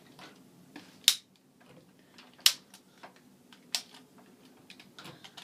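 Sharp plastic clicks, three loud ones about a second and a half apart with fainter ticks between, from the switch of an overheated hair dryer being worked; the dryer does not start up.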